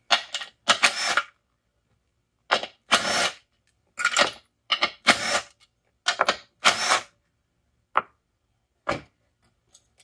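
Cordless drill running in short bursts of a quarter to half a second, backing out the small bolts of a transmission valve body's separator plate, with a couple of sharp clicks near the end.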